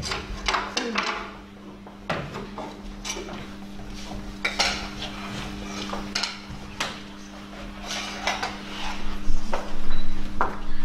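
Irregular clattering and knocking of stage props being handled on a wooden stage floor, busier and louder near the end, over a steady low hum.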